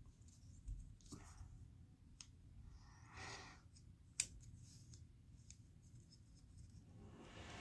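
Faint clicks and rubbing from a small wood-and-plastic fidget toy being turned and worked in the hands, with one sharper click about four seconds in.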